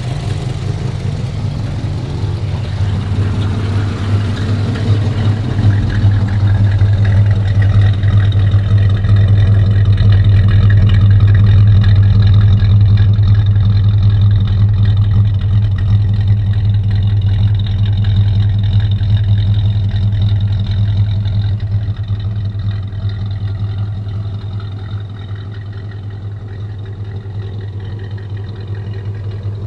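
1953 Studebaker Commander's V8 idling, its exhaust note heard at the tailpipe as a steady low hum. It grows louder through the middle and eases off toward the end, with no revving.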